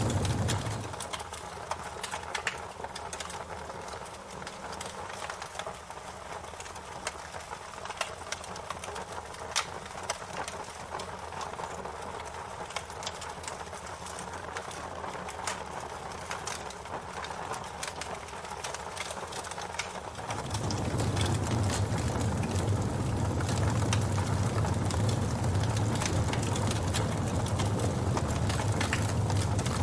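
Wood fire crackling, with frequent sharp pops and snaps over a steady hiss. A low rumble drops away about a second in and comes back louder about twenty seconds in.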